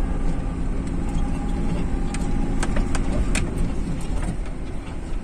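Toyota Hilux 3.0 diesel pickup driving slowly over a rough dirt track in four-wheel drive, heard from inside the cab: a steady low engine hum with a few sharp knocks and rattles from the body over the bumps.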